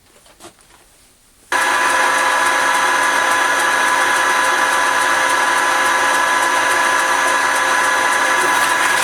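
A few light handling clicks, then a wood-turning lathe switches on about a second and a half in and runs steadily with a whine.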